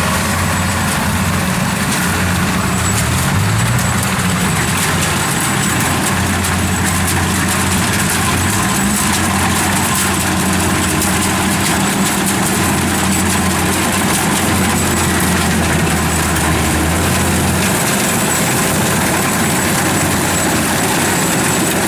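Kubota DC-93 rice combine harvester running steadily while harvesting, its engine hum shifting slightly in pitch now and then over the machine's general mechanical clatter.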